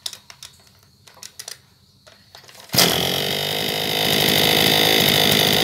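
Maruyama KC26MX brush cutter's 26cc two-stroke engine being started: a few light clicks as the spring-assisted recoil starter is drawn out slowly, then, just under three seconds in, the engine fires at once and runs at a high steady speed, getting a little louder about a second later.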